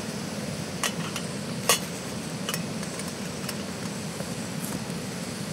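Backpacking gas canister stove burning steadily under a metal pot of water coming to the boil, with a few light metal clinks from the pot lid being handled, the loudest about a second and a half in.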